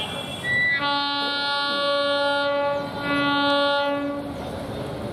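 Bangladesh Railway diesel locomotive sounding its horn in two blasts, a long one of about two seconds and a shorter one right after, over the running noise of the approaching train.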